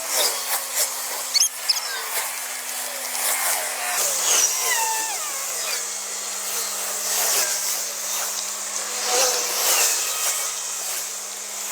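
Car jack being cranked up under a car, with scattered high metal squeaks and clicks over a faint steady hum.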